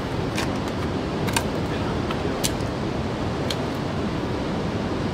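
Steady wind noise on the microphone, with four light, sharp clicks about a second apart as a magnet-fishing rope is hauled up and the muddy magnet comes over the railing.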